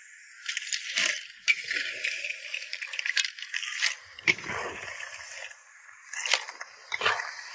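Cooked clams and mussels being ladled onto an enamel plate: shells clattering and clinking against each other and the plate in a series of sharp knocks.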